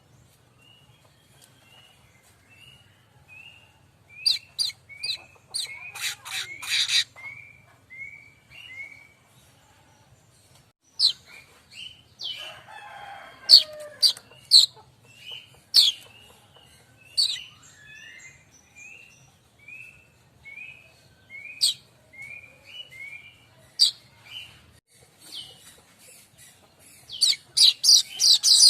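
Streaked weaver (manyar kembang) singing: a run of short downslurred chirps, about two a second, mixed with sharp high ticking notes and a few quick chattering runs, loudest near the middle and the end.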